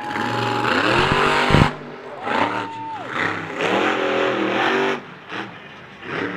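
Max D monster truck's supercharged V8 revving hard in bursts, the pitch climbing and then cutting off abruptly, three times over.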